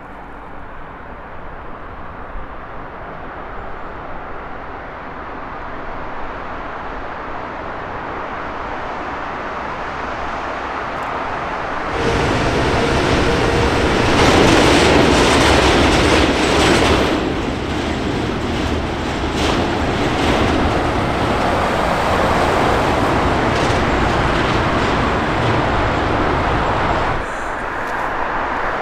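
Jet airliner engine noise: a steady rumble and roar that builds over the first ten seconds or so, jumps suddenly louder about twelve seconds in, is loudest a few seconds later, and drops abruptly near the end.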